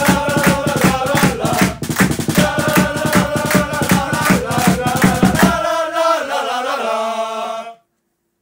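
Football supporters' chant sung by a group of voices in unison over a steady, quick drum beat. The drum stops about six seconds in, the voices hold a final note, and everything cuts off about two seconds later.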